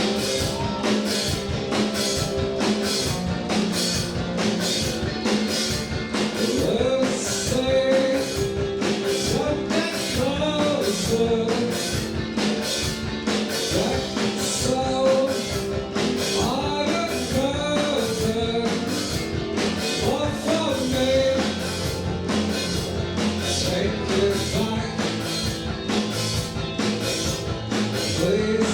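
Live indie rock band playing a song: drum kit keeping a steady beat under guitars, with a sung vocal line.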